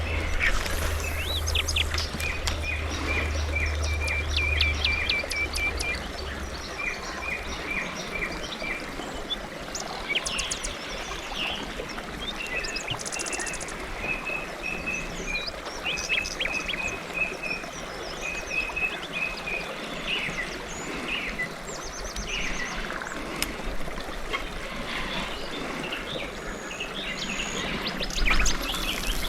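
Several songbirds chirping and singing, with rows of quick repeated notes, over a steady outdoor hiss. A low hum runs underneath for the first few seconds, then stops.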